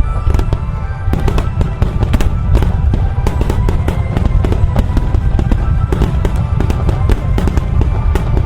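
Dense barrage of aerial fireworks: rapid overlapping booms and crackling reports over a continuous low rumble, with music playing underneath.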